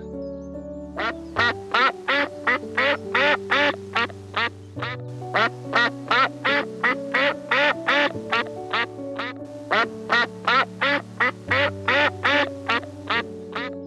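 An animal calling in short, evenly spaced calls, about three a second, each with an upward bend in pitch, over background music with held chords. The calls break off briefly twice.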